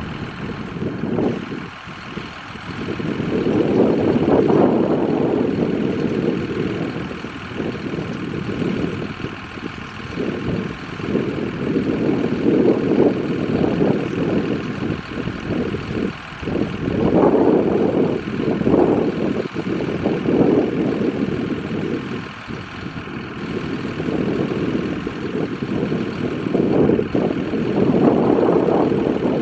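Steyr CVT 6230 tractor working a Mascar Multiwrap 130 combined baler-wrapper: steady engine and machinery noise that swells and eases every few seconds.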